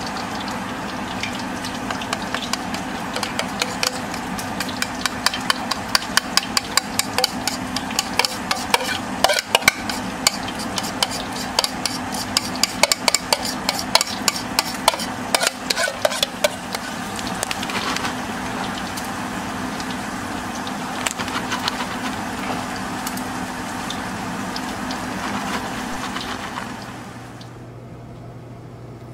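Kitchen cooking sounds: a utensil stirring and scraping food in a pan with rapid, irregular crackling and clicking, over a steady low hum. The clicking thins out in the second half and the sound drops to a quieter hum near the end.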